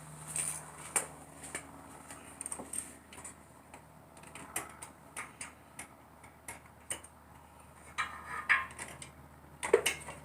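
Irregular clicks and light metallic taps of hand tools being worked around a spark plug in the engine bay of a V6 Mustang, with a louder cluster near the end.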